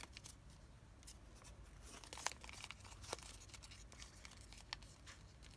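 Origami paper being folded and creased by hand: faint crinkles and a few soft clicks, the sharpest about two and three seconds in.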